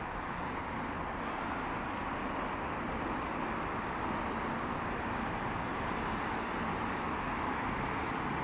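Steady city traffic noise, an even rush of passing vehicles, with a few faint ticks about seven seconds in.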